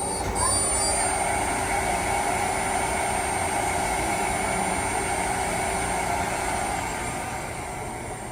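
Mazak QTU 250 CNC turning center running: a steady mechanical hum and whine with several held tones. A short rising whine sounds in the first half second, and the sound eases off a little near the end.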